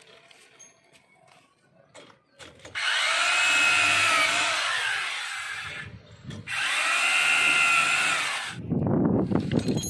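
Corded electric drill boring into a plastered masonry wall through a dish-antenna bracket's mounting holes, in two runs of about three and two seconds, its motor pitch wavering as it works. A rough rumbling noise follows near the end.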